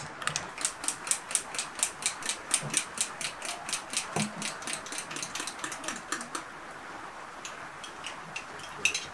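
A metal spoon clinking against a drinking glass as it quickly stirs yogurt, about six even clicks a second. The clicks stop about six seconds in, leaving a few scattered clinks.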